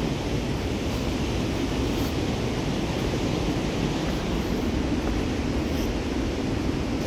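Steady rushing of the Merced River's whitewater below the trail, mixed with wind buffeting the microphone.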